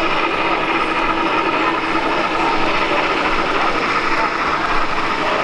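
Model trains running on a show layout: a steady drone with several steady tones over the low murmur of a crowd.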